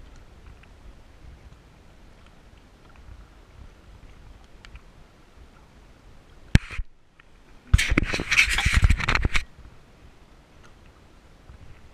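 A sharp knock, then about two seconds of loud, close scraping and crackling against the bow-mounted GoPro camera, whose loosely screwed mount lets it tip down. Around it, a faint low rumble of wind and water.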